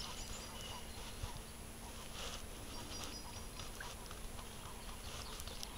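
Outdoor ambience with a few short, high-pitched bird calls, one near the start and another about three seconds in, over faint scattered ticks and rustling.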